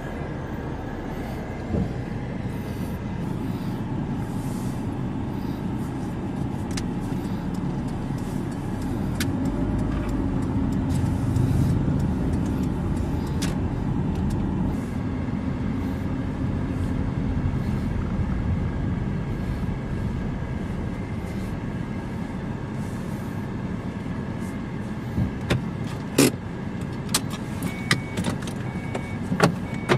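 Car driving slowly, heard from inside the cabin: a steady low rumble of engine and road noise. Near the end come a few sharp clicks, and a repeating high beep starts up.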